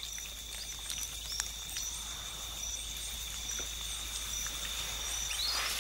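Night ambience of a mangrove swamp: a steady, high-pitched insect chorus, with scattered faint clicks and a short chirp near the end.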